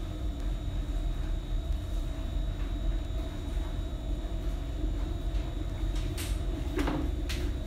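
Steady low rumble and hum of background machinery, with a few short clicks and a brief knock near the end.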